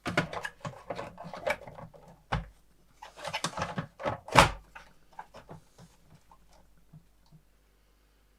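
Clicking and rattling of parts being handled, with two sharp knocks, the second and louder one about four and a half seconds in, then only faint ticks.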